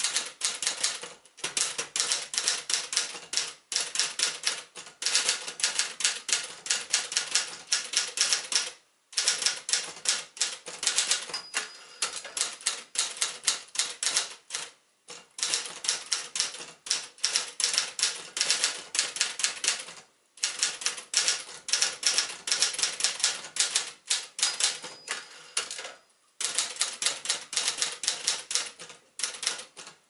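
A 1975 Adler J5 manual portable typewriter being typed on at a brisk pace: rapid clicks of the keys and typebars striking, in runs broken by short pauses every five or six seconds. The machine is freshly restored and working properly.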